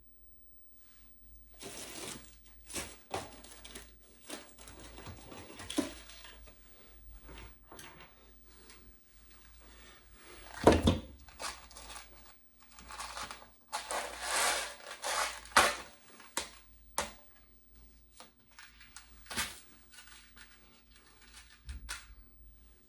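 Irregular rustling and crinkling of hands handling materials, with scattered clicks and a sharp knock about eleven seconds in.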